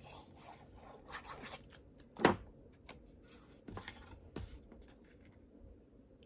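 Cardstock being handled and slid against paper and the desk, a soft rubbing rustle, with one sharp tap a little over two seconds in and a couple of lighter taps about four seconds in as the card is set down and the panel pressed into place.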